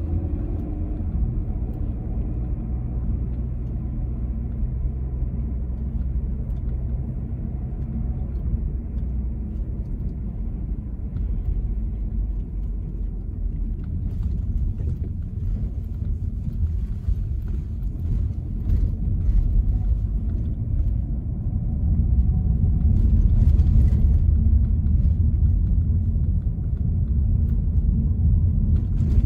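Car driving slowly, heard from inside the cabin: a steady low engine and road rumble, with scattered light clicks and rattles from about halfway, getting louder near the end.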